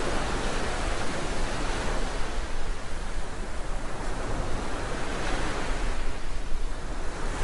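Rough open sea churning and breaking into foam: a steady rush of surf.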